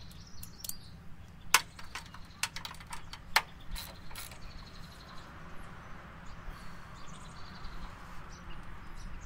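Scattered clicks and taps from hands fitting a voltage regulator and its small bolts into a lawn tractor's wiring, with two sharper clicks about a second and a half and three and a half seconds in, over a steady low hum.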